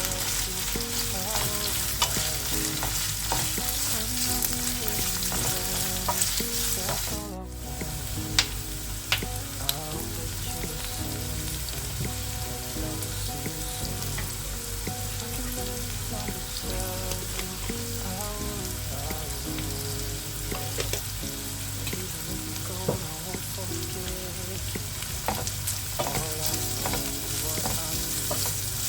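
Food frying and sizzling in a pan as it is stirred, with scattered sharp clicks of a utensil against the pan. The sizzle drops out briefly about seven seconds in.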